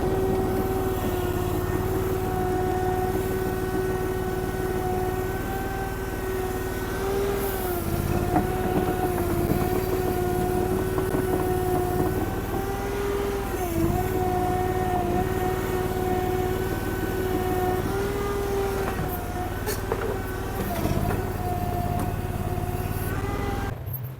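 Derette DRT450 mini skid steer's gasoline engine running steadily at high throttle, its pitch sagging briefly about three times as the machine is worked, then cutting off just before the end.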